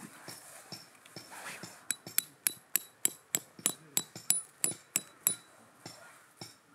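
A metal-headed peg hammer drives a tent peg into the ground, pinning down the tent's centre reference plate. About a dozen quick metallic strikes come roughly three a second, each ringing briefly. They start about two seconds in and stop after about five seconds.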